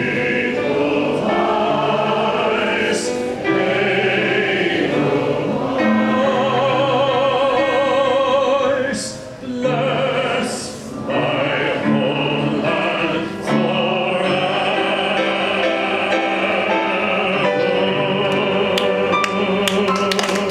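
Operatic-style singing with a wide vibrato over piano accompaniment, in phrases with two brief breaks near the middle.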